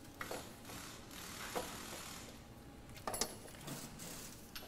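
A few faint metallic clinks and knocks as a new loaded knuckle assembly is handled and fitted onto the suspension: one early, one in the middle and a quick cluster a little past halfway, over a soft hiss.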